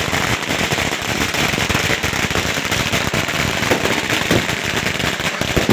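Firecrackers going off in a fast, unbroken run of sharp pops, like a long string crackling through without a pause.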